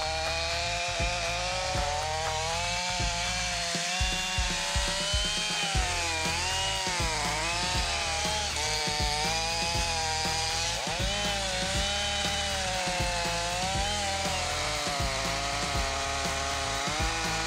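Gasoline chainsaw running under load as it cuts into the base of a large tree trunk, its engine pitch repeatedly dipping and rising as the chain works through the wood. Background music plays underneath.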